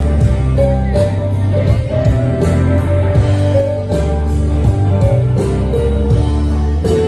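A live country band is playing through an outdoor festival stage's speakers, heard from the crowd: a singer over guitar and a heavy, steady bass.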